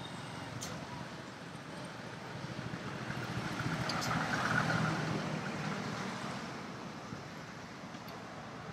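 A motor vehicle driving past on the road, its engine and tyre noise growing louder to a peak about halfway through and then fading away, over steady traffic background.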